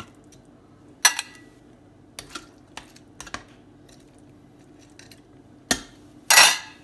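A metal utensil clinking against a skillet as pieces of chicken are set back into it: a handful of separate clinks, the first with a short ring, then a louder half-second scrape near the end.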